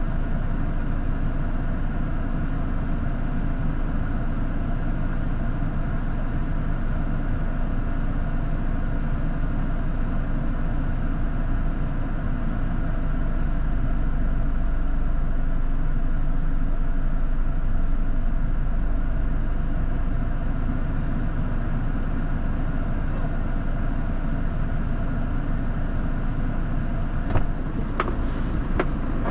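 Off-road 4x4 vehicle's engine running with a steady low rumble, with a few sharp clicks near the end.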